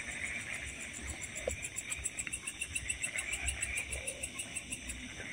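Crickets chirping in a fast, even pulse, with a low rumble underneath.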